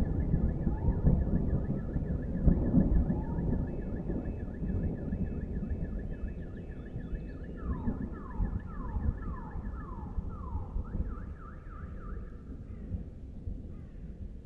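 An electronic alarm sounding in the distance and cycling through its patterns: a steady warbling tone, then a run of about six falling sweeps, then a string of quick rising sweeps. Underneath is a low rumble that fades steadily.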